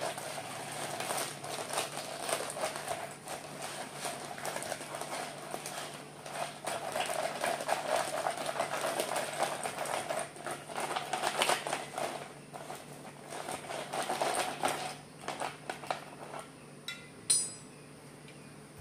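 Ice cubes clinking and rattling against each other and a plastic cup as a hand adds and settles them in the cup. The clatter thins out a few seconds before the end, and one short sharp knock follows.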